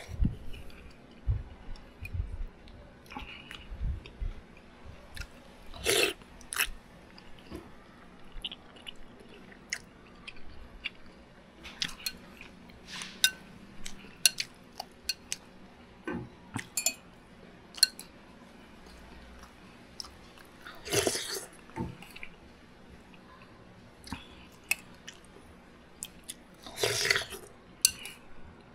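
Close-up eating sounds: chewing mouthfuls of chicken soup, with many short sharp clicks from a metal spoon on the bowl and a few louder, longer noisy bursts, about 6, 21 and 27 seconds in.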